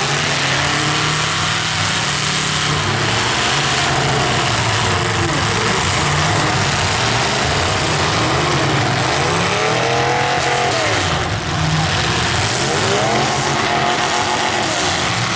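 Several demolition derby cars' engines running loud at once, revving up and down as they drive around the arena, mixed with a steady wash of noise.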